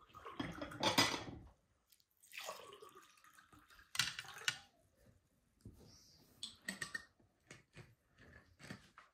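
Fork scraping and plates clinking as grilled fish is served from a platter onto plates, with a few sharp clinks among softer scraping.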